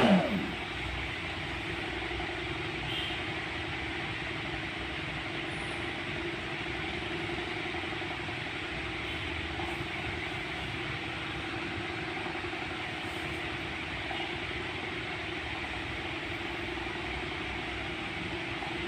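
Hair dryer running steadily: a constant rush of blown air with a steady motor hum.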